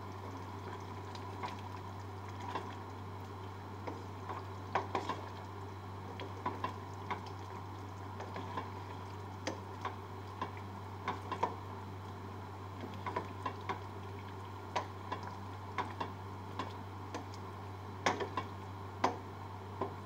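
A slotted spatula stirring a thick chicken stew in a stainless steel pot: wet stirring with scattered light clicks and knocks of the spatula against the pot, over a steady low hum.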